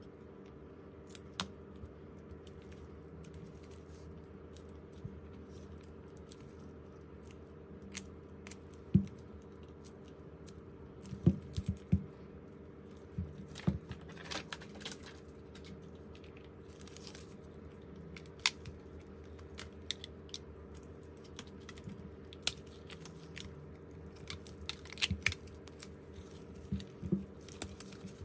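Scattered small clicks, taps and scrapes of hand tools and parts being handled during repair work on a smartphone, over a steady low hum.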